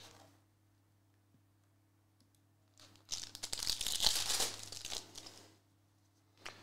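Foil wrapper of a trading card pack being torn open, crinkling for about two and a half seconds, starting about three seconds in.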